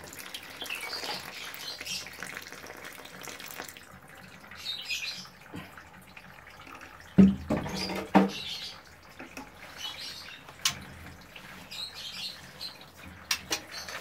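Water being poured from a container onto a bed of sand and soaking in, with birds chirping now and then and two louder knocks about seven and eight seconds in.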